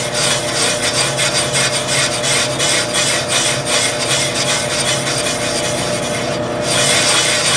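Cylinder boring machine running, its cutter boring out a cylinder of a 292 engine block: a steady motor hum under a continuous rasping scrape of the tool cutting cast iron. The scraping briefly drops out about six and a half seconds in, then carries on.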